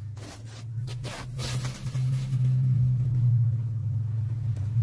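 Low, steady rumble of an unseen motor vehicle engine that grows louder and then holds. In the first second or so, a few short metallic clicks and scrapes of pliers twisting steel tie wire around rebar.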